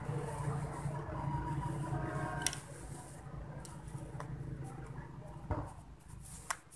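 Small clicks and taps of a screwdriver and wires being worked into the capacitor terminals of an electric motor's terminal box, with a sharp click about two and a half seconds in and two more near the end, over a steady low background hum.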